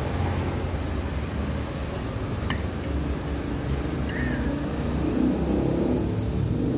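Low, steady rumble of a motor vehicle engine, growing a little louder in the second half.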